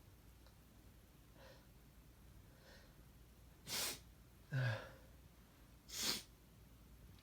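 A person's quiet breathing and sniffing: faint breaths early on, then two short sniffs about four and six seconds in, with a brief voiced sigh-like exhale between them.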